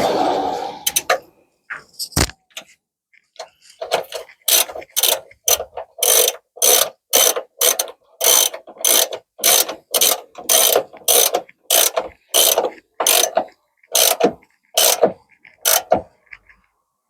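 Hand socket ratchet clicking in a long run of short strokes, about two to three a second, as a bolt is wound in by hand rather than with an air tool.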